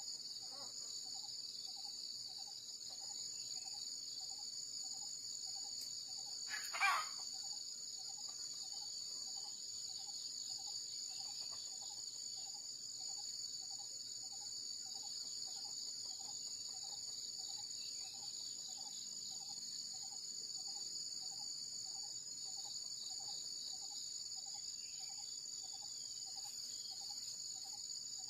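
Steady high-pitched drone of insects in the woodland, with a softer lower note pulsing about twice a second beneath it. About seven seconds in, a single brief sharp sound stands out as the loudest moment.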